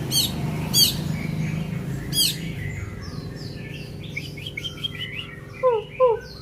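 A songbird singing: a few sharp, high, hooked call notes repeated in the first couple of seconds, a quick run of twittering notes around four to five seconds in, then two lower falling whistles near the end.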